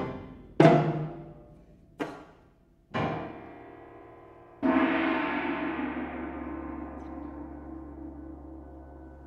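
Sparse, widely spaced struck notes in a contemporary trio for alto saxophone, piano and percussion: four strikes, each left to ring out, the last, about halfway through, the loudest and fading slowly.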